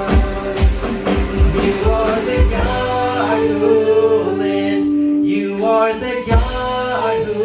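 Worship band music between sung lines: a steady kick-drum beat for the first few seconds, then held chords.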